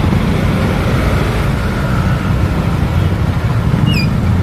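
Motorcycle engine running at low speed while creeping through slow city traffic, a steady low rumble under surrounding traffic noise. A short high chirp sounds near the end.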